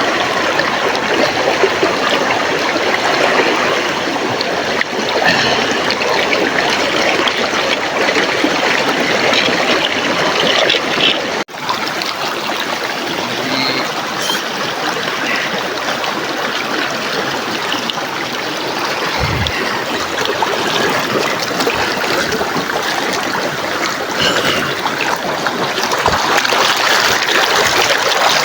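River water flowing steadily over rocks, a loud, even rushing with trickling and gurgling in it. The sound briefly drops out about eleven seconds in.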